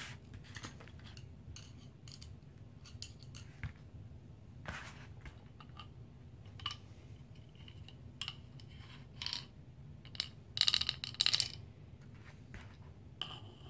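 Small metallic clicks and scrapes of a flathead screwdriver turning the pistol grip screw into an AR-15 lower receiver, with a short burst of louder clicking about ten and a half seconds in.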